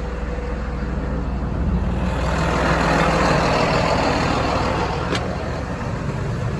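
Tractor engine running, heard from inside the cab, with a loud rushing noise that swells up about two seconds in and eases off near the end.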